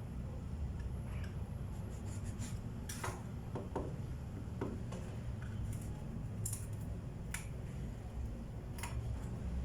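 Scattered light clicks and taps from hand work on a plywood table top, irregular and a second or so apart, over a steady low rumble.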